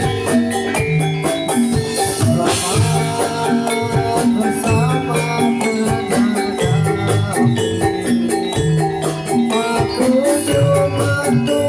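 Javanese gamelan music accompanying a jathilan horse dance: bronze metallophones and gongs playing a fast, evenly repeating pattern over drums, with a jingling rattle on top.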